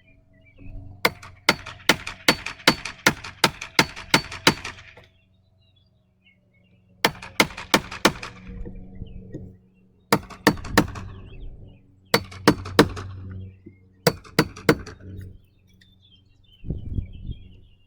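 Hammer driving nails into wood in quick runs of blows: one long run of about ten strikes, then four shorter runs of four or five strikes with pauses between.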